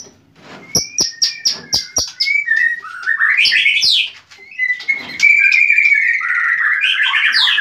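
White-rumped shama singing: rich, varied whistled phrases mixed with sharp clicks, then a long warbling phrase through the second half.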